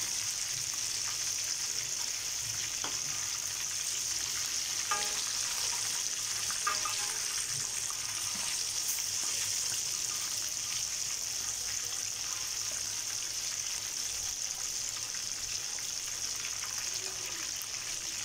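Chicken pieces deep-frying in hot oil in a wok, a steady sizzling hiss as they are fried a second time. A couple of faint clicks about five and seven seconds in.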